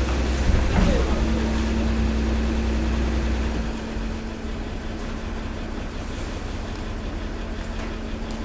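Hydraulic waste compactor running: a steady hum from its pump unit, with a heavy low rumble for the first few seconds that drops away a little under four seconds in, leaving the hum running on more quietly.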